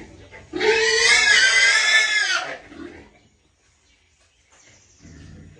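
A pig squealing: one loud, high-pitched squeal lasting about two seconds, starting about half a second in.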